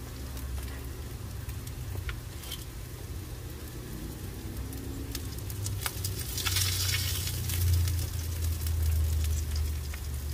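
Beef burger patties sizzling and crackling in their fat on a gas grill, with a louder burst of sizzle about six seconds in as tongs turn a patty. A steady low rumble sits underneath.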